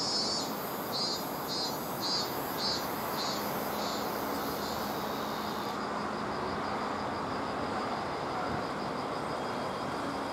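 Steady outdoor hiss and rumble. For the first six seconds, short high-pitched pulses repeat about twice a second over it.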